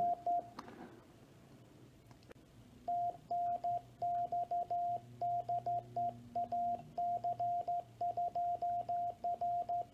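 Morse code sent on a homemade straight key, heard as the radio's CW sidetone: one steady mid-pitched beep keyed on and off in dots and dashes. It begins in earnest about three seconds in, after a brief blip at the start.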